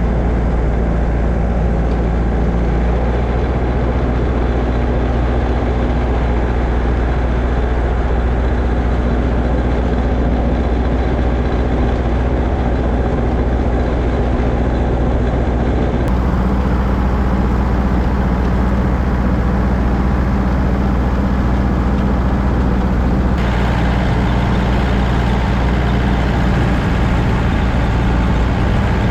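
Snowblower engine running steadily, its note shifting slightly at two cuts, about halfway through and again near the end.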